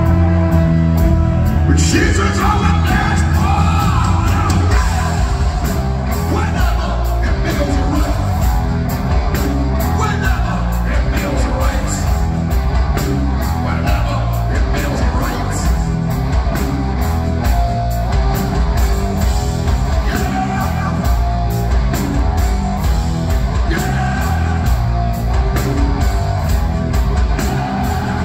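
Live rock band playing at full volume: distorted electric guitar, bass guitar and a drum kit keeping a steady beat, with a singer's voice over the top. It is heard from the audience in a large, reverberant hall.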